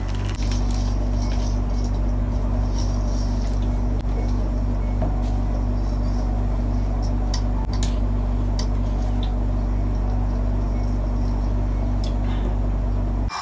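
A steady low hum from a motor or electrical appliance, with occasional light plastic crinkles and clicks as a small wrapper and a plastic bottle are handled.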